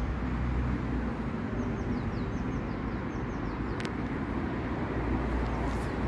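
Outdoor ambience: a steady low rumble, with faint high bird chirps, short quick falling notes, in the first two seconds. A single click near four seconds and light ticking near the end.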